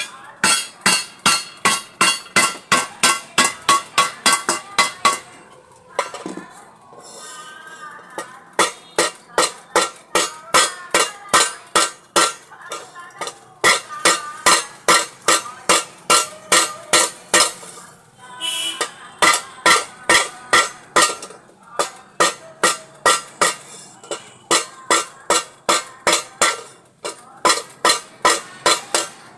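Metal repeatedly struck with a hammer while a pressure cooker is being repaired. There are about three sharp, ringing strikes a second, in runs separated by short pauses.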